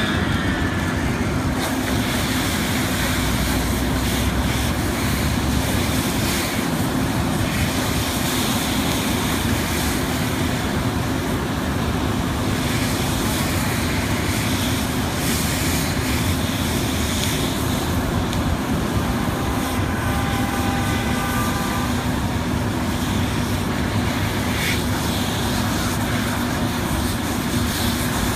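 Steady drone of a fire engine's motor running its pump, over the rushing hiss of a fire hose spraying water onto a car fire. A brief higher-pitched tone sounds about two-thirds of the way through.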